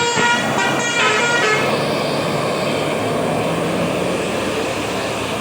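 Telolet basuri horn on a tour bus playing a quick run of changing musical notes, which stops about a second and a half in. After it, the bus's engine and road noise carry on steadily.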